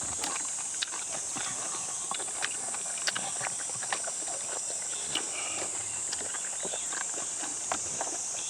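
Eating sounds: many short irregular clicks and smacks of chewing, slurping, spoon and bowl, over a steady high insect buzz.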